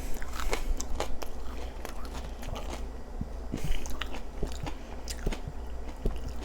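Close-miked chewing and biting of food, with many small wet clicks and crackles from the mouth.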